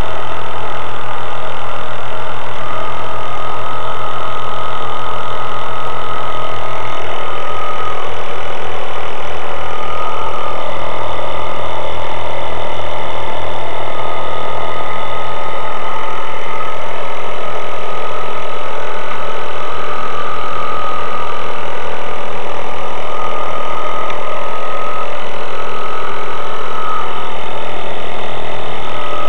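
A motor running steadily and loud, with a rapid low throb and a high whine.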